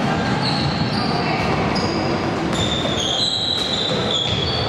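Basketball players' sneakers squeaking on a hardwood gym floor as they run down the court, a string of short high squeaks over the steady low noise of the gym, with faint footfalls and ball bounces.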